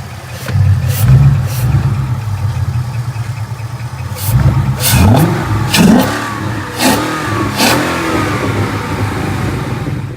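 2017 Ford Mustang GT's 5.0 L V8 running through a Magnaflow exhaust with the resonators deleted: idling with a short blip about a second in, then revved several times in quick succession from about four seconds in.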